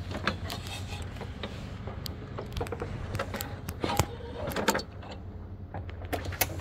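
A string of irregular sharp knocks and clicks over a steady low hum, loudest about four seconds in.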